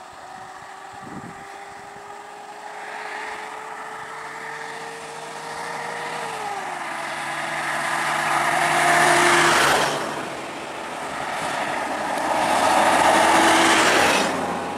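Vehicle engines running on the road with a steady engine note that shifts down about six seconds in. The noise swells loud twice, around nine and thirteen seconds in, and cuts off sharply each time.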